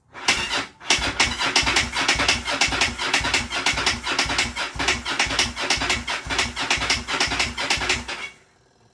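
Motorcycle electric starter cranking the engine with a fast, even beat for about eight seconds, then cutting off, without the engine catching. The engine turns over but won't fire, which the owner suspects is down to no spark or no fuel.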